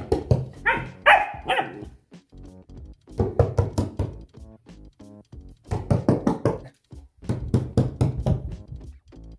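A German Shepherd puppy barking at a hand, three quick barks about a second in, over background music.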